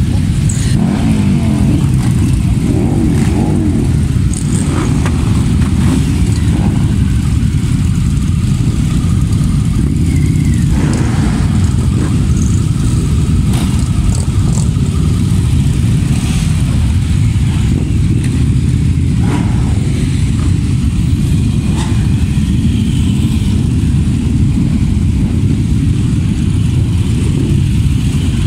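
A crowd of motorcycle engines running together at idle, with throttles blipped now and then.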